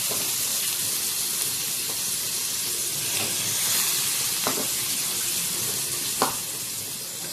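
Freshly rinsed chana dal (split Bengal gram) sizzling steadily in a hot steel kadai as its water cooks off. Two sharp clicks, one midway and a louder one near the end.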